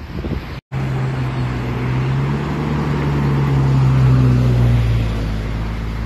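Heavy diesel engine of a Scania fire truck running with a steady low drone, growing louder to about two thirds of the way through and then easing off, over wind and traffic noise. The sound drops out completely for a moment less than a second in.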